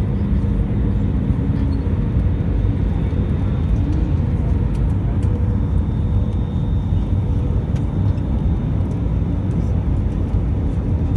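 Cabin noise inside a jet airliner by an over-wing window on final approach: the engines and rushing air make a steady, even rumble with faint steady engine tones above it.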